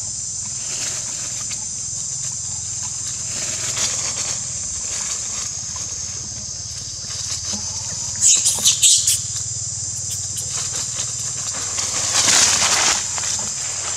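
Long-tailed macaques on dry leaf litter: a quick run of five or so short, shrill monkey cries about eight seconds in, then a burst of dry leaves rustling under a walking monkey a little after twelve seconds, over a steady high hiss.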